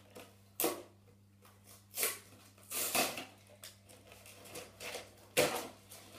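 Plastic wrapping being torn and pulled off a cardboard trading-card box, crinkling in short sharp bursts, four louder ones spread through, with softer rustling between.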